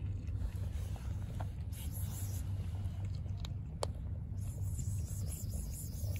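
Kitten purring with a steady low rumble, with a few sharp crunches of dry kibble as it eats.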